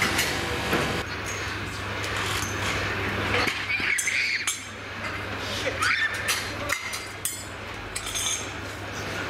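Scattered metal clinks and clanks of steel railing and floor parts of a fairground ride being taken apart, with a few short high squeaks. A steady low hum sets in about a second in.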